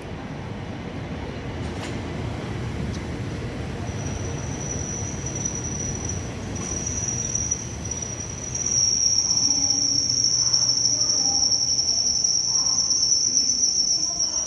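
ITX-Saemaeul electric multiple unit rolling into the station with a low rumble of wheels on rail. As it brakes, a thin high squeal comes in about four seconds in, breaks off now and then, and turns loud and steady after about nine seconds.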